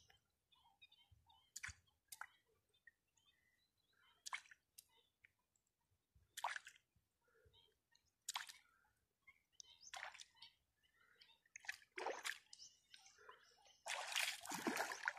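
Small splashes of objects tossed by hand into river water, short and separate, about one every two seconds, then a hand sloshing in the shallows near the end.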